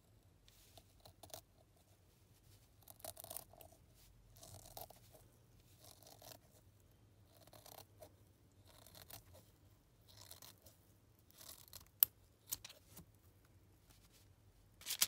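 Scissors cutting through a squishy toy and its plastic wrap, a faint crunching snip after snip, about one a second, with a sharp click near the end.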